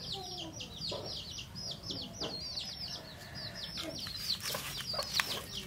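Birds calling: a rapid run of high, falling peeps, about six a second, with a few lower clucking calls under them. A few faint taps come near the end.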